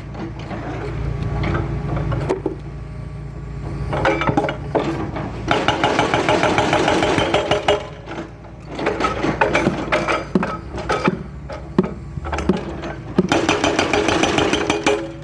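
Hitachi Zaxis 210LC excavator's diesel engine running steadily while its bucket breaks up asphalt, with sharp knocks and cracks throughout. Two longer stretches of crunching and scraping come about four seconds in and again near the end.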